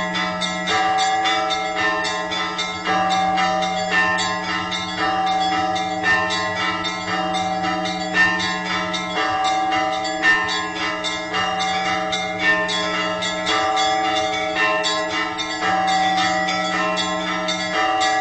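Orthodox church bells ringing an Easter peal: smaller bells struck rapidly and continuously over a deeper bell sounding about every two seconds.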